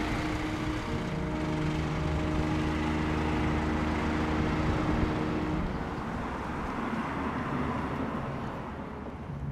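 Engine of a light delivery truck running close by as it drives slowly past, a steady hum that fades after about six seconds.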